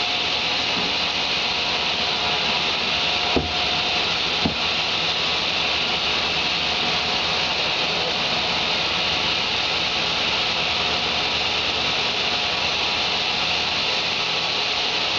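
10-inch Delta table saw running steadily through a sheet of laminated MDF, with two short knocks about three and a half and four and a half seconds in.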